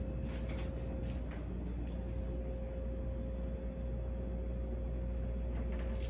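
Fasco Parlour Fan ceiling fan running at full speed: a steady swish of moving air over a low hum, with a faint steady whine. No bearing or bushing noise is heard.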